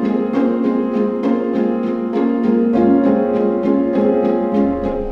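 Background piano music: steady repeated notes, about four a second, over held chords.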